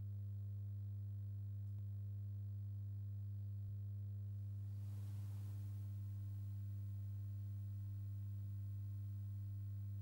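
Steady low electrical hum, a deep tone with fainter overtones, from the recording or sound system, with a brief soft hiss about halfway through.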